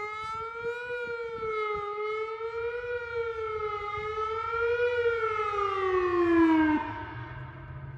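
Whelen WPS-3000 electronic outdoor warning siren sounding the Attack signal, a tone that wavers up and down about every two seconds. Near the end the pitch slides down and the signal cuts off.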